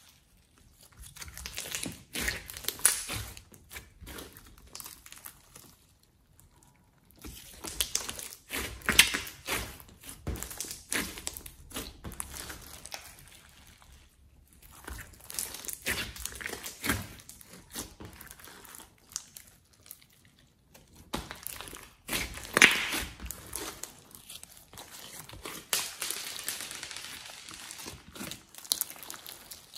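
Glossy slime mixed with floam beads, clay and glitter being stretched, folded and squeezed by hand: sticky clicks, pops and crackles in irregular bursts with short pauses between.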